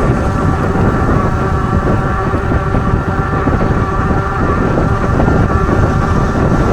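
Wind buffeting the microphone on a moving 26-inch fat-tire e-bike, under a steady whine from its 1,000 W rear hub motor.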